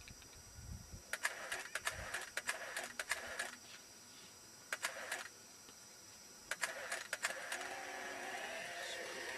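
Still camera's shutter firing in quick runs of sharp clicks, three bursts of several shots each, as the model changes pose. A steady hiss rises near the end.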